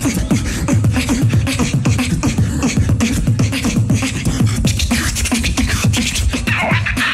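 Two beatboxers performing together into microphones as a tag team: a fast, dense beat of deep vocal kick drums with sharp snare and hi-hat clicks layered over it.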